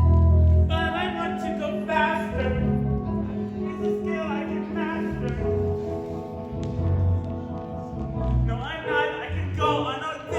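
Show tune with singers over an instrumental accompaniment that has a steady bass line; the voices come in about a second in.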